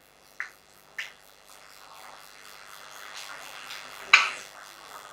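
A few sharp clicks from a smartphone being tapped and handled, two light ones in the first second and a louder one about four seconds in, over a faint steady background hiss.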